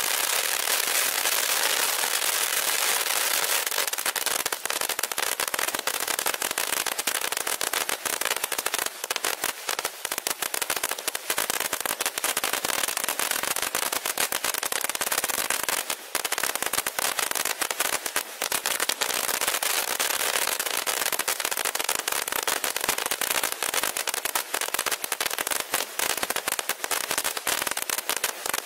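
Shogun SF895 Pop Corn Fountain, a ground fountain firework, burning with a steady hiss and dense, constant popping and crackling as its small stars burst.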